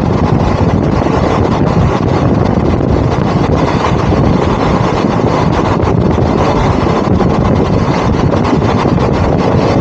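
Steady running noise of a moving train, with wind buffeting the microphone.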